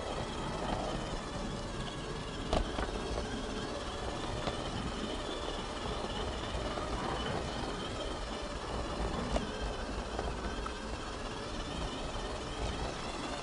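Garden-scale model train running along its track, a steady rumble of wheels on rail and drive, with a few light clicks.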